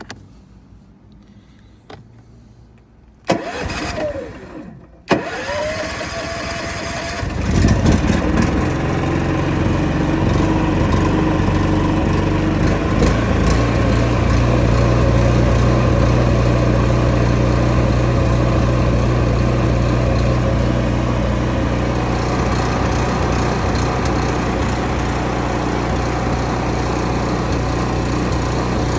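Champion 11,000-watt dual fuel inverter generator being started: a few seconds of cranking, then the engine catches about seven seconds in and runs. Its idle lopes and won't settle smoothly, a rough idle on a unit fresh out of the box.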